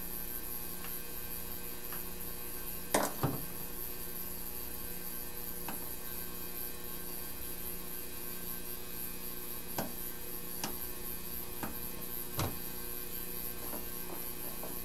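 Steady mains hum, with light clicks and taps from a smartphone being handled on a workbench mat: a sharp pair about three seconds in, then several fainter single ones later.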